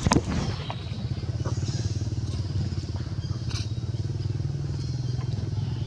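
A sharp knock right at the start, then the low, steady hum of an engine running nearby, with a brief high chirp in the middle.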